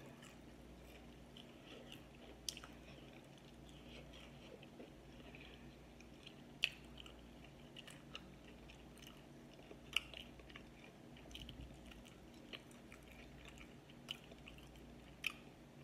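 A person chewing and biting into sauced fried chicken wings: quiet wet chewing, with a handful of sharp mouth clicks scattered through, the clearest about two and a half, six and a half and ten seconds in.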